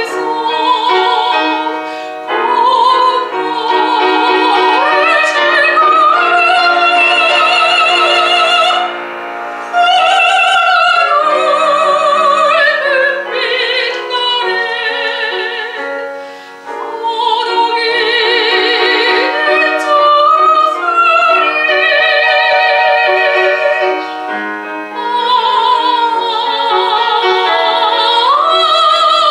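Soprano singing a Korean art song in a wide vibrato, accompanied by piano, in long phrases with short breaths between them.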